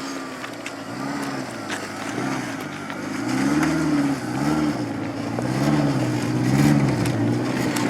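Rock-crawler buggy engine revving in a series of short throttle blips, its pitch rising and falling over and over, louder in the second half. Occasional sharp knocks are heard over it.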